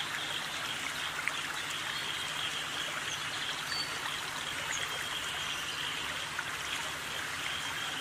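Steady, even rushing noise like flowing water, with a faint low hum underneath.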